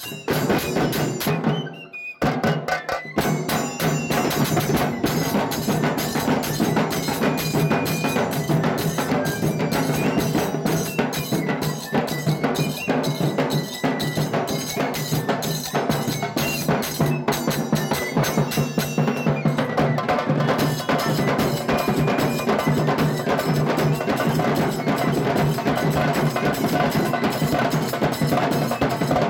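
Dhol and tasha drum band playing a fast, dense rhythm of rapid strokes, with a bansuri flute melody played into a microphone over it. The playing breaks off briefly about two seconds in, then runs on unbroken.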